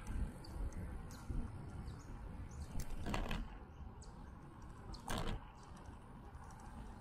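Bicycle ride heard from a bike-mounted action camera: a fluctuating low rumble of wind and tyre noise on the mic, with faint high bird chirps. Two brief hissing bursts come about three and five seconds in.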